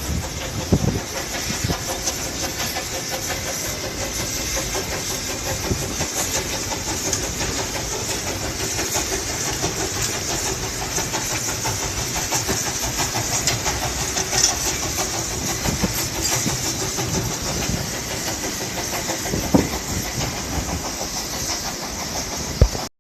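Steam train running, with a steady hiss and low rumble. Wind buffets the microphone.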